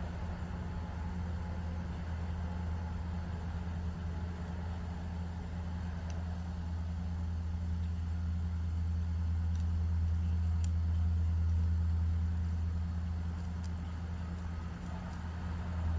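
Low steady rumble that swells a little in the middle, with a few faint ticks.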